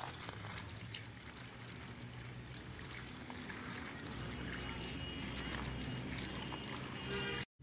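A thin stream of water pouring and splashing, first over grapes on a metal tray, then over small brinjals in a plastic colander as hands rub them clean. The sound cuts off abruptly near the end.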